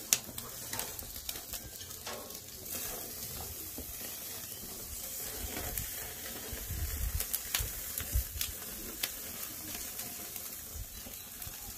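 Meat steaks and sliced vegetables sizzling on a hot gas grill: a steady hiss dotted with sharp crackles and the clicks of metal tongs turning the food. A few dull low thumps come about two thirds of the way through.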